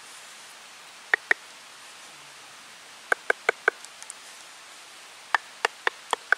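A small wooden baton knocking on the end grain of a hollowed log cup: about ten sharp wooden knocks in three groups, two, then four, then four.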